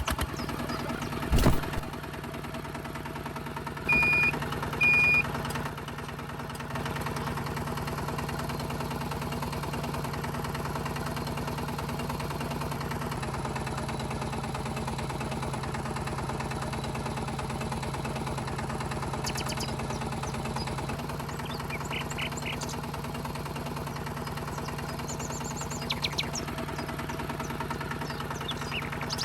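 Motor of a DIY miniature tractor running steadily, with two short high beeps about four and five seconds in.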